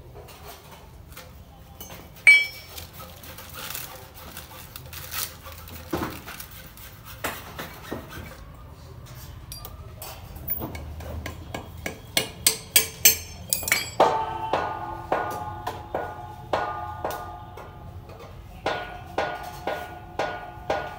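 Metal clinks and knocks as an Activa scooter's suspension parts and hand tools are handled and tapped on concrete, with one sharp knock about two seconds in and a run of ringing metal taps, about two a second, in the second half.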